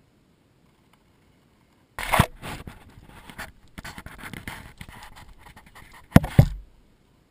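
Handling noise on the camera itself: a sharp bump as it is grabbed about two seconds in, scratchy rubbing while it is carried, and two loud knocks as it is set down a little after six seconds.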